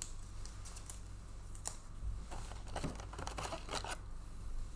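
Trading cards and their plastic sleeves and wrappers being handled: soft rustling and crinkling with small clicks, busiest in the middle, over a steady low hum.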